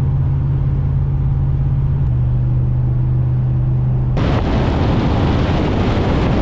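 Truck engine running at a steady drone while driving, its note shifting slightly about two seconds in. From about four seconds in, a loud rushing noise suddenly covers it.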